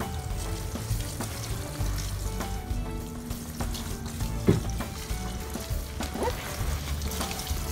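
Water sprinkling from a plastic watering can's rose onto broad leaves as a steady hiss, under background music.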